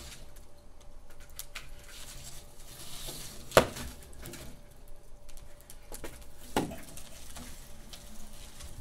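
Wood fire in a fireplace crackling, with scattered small snaps and two louder pops, one about three and a half seconds in and one about six and a half seconds in.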